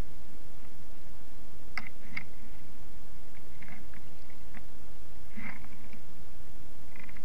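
Kayak paddle strokes: the blades dip into calm water and drip in soft, short splashes about every two seconds, over a steady low rumble of water along the moving hull.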